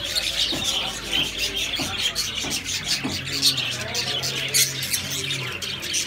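Many small caged birds chirping rapidly and continuously, a busy overlapping chatter of short high calls. A low steady hum joins for a couple of seconds about halfway through.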